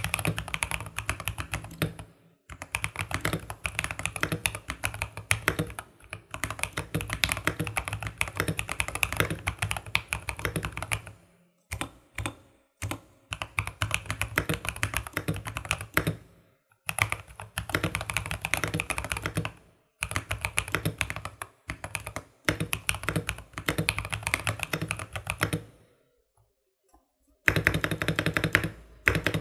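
Typing on a modded Vortex Series GT-8 mechanical keyboard with lubed linear switches (JWK T1 alongside stock Otemu Red), PBT SA-profile keycaps, and tempest and band-aid mods. Fast runs of keystrokes are broken by short pauses, with a longer stop about 26 seconds in.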